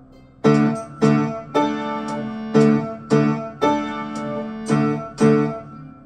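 Upright piano played with both hands: chords struck in the low-middle register in a repeating pattern of two short chords and a longer held one, twice, followed by two more chords that ring out near the end.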